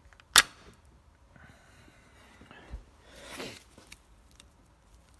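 Hand tool work on a valve stem oil seal with a stem seal removal tool: one sharp metallic click about half a second in, then faint handling rustle, a dull knock and a soft breathy noise a little past the middle.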